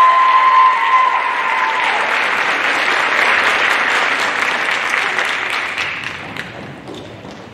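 Audience applauding at the end of a dance performance. A single long high note carries over the first couple of seconds, and the applause dies away near the end.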